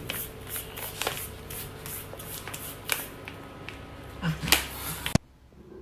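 Rustling and scraping, dotted with many quick clicks and taps, which cut off abruptly about five seconds in.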